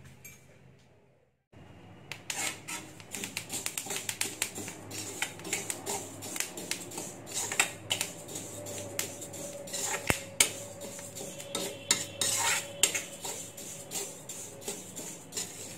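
A steel spoon stirring dry flaxseeds round a metal kadhai, with a dense run of scrapes and clinks of spoon on pan and seeds rattling. The seeds are being dry-roasted without oil. It starts about a second and a half in, after a brief near-silent gap.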